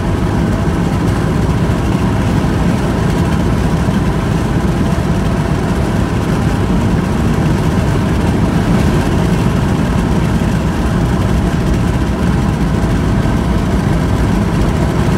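Steady road noise and engine hum inside a car's cabin as it drives along a paved highway.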